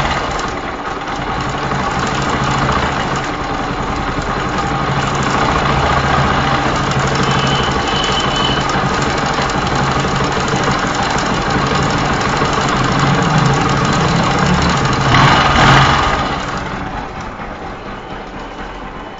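Bajaj Pulsar 135 LS single-cylinder engine idling with a clicking, rattling noise from a badly loose timing chain hitting the upper camshaft sprocket; the engine does not idle properly. It is revved briefly about fifteen seconds in, and the sound gets quieter over the last two seconds.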